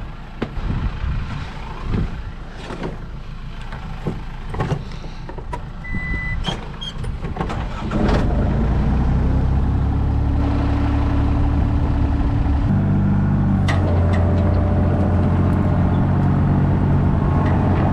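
New Holland mini excavator's diesel engine, with knocks and clunks over a low idle for the first several seconds. About eight seconds in it throttles up and runs steadily, its pitch shifting a few seconds later as the machine is moved.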